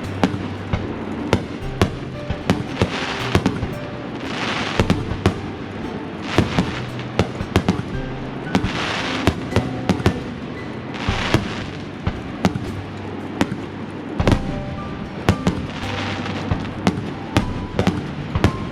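Aerial fireworks bursting: many sharp bangs in quick, irregular succession over background music.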